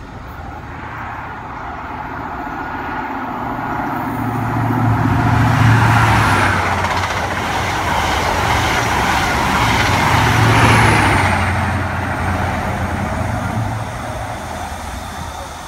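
High Speed Train (InterCity 125) running through the station: Mark 3 coaches' wheels rushing over the rails, with a deep diesel engine hum that swells twice, about five seconds in and again about ten seconds in, as the two power cars go by, then fading as the train moves away.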